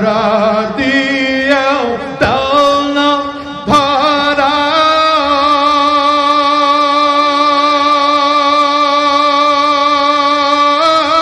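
A man singing an Islamic devotional gojol (eshqer gojol) into a microphone, with no instruments: a few wavering, ornamented phrases, then one long note held steady from about four seconds in until near the end.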